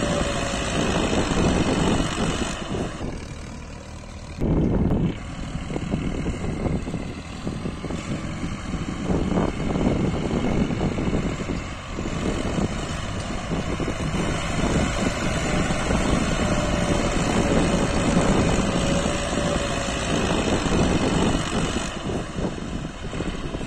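Massey Ferguson 240 tractor's three-cylinder diesel engine running hard under heavy load, pulling a loaded trolley up a steep ramp and belching black smoke. Its level dips a few seconds in, then jumps back up suddenly.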